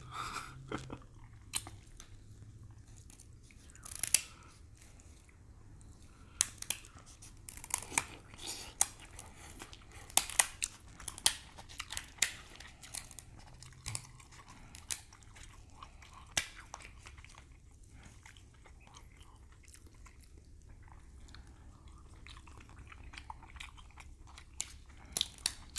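Close-miked eating of grilled king crab legs: sharp cracks and snaps of crab shell and wet chewing, in a scattered run of clicks that is busiest in the middle stretch.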